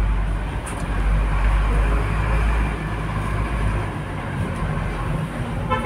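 Street traffic with a low vehicle rumble that is loudest over the first few seconds as a vehicle passes. Near the end a vehicle horn sounds in a few quick beeps.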